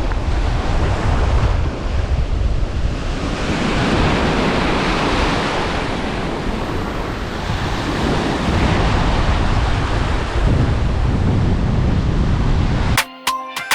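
Sea surf washing in, with heavy wind buffeting the microphone; the sound cuts off suddenly about a second before the end.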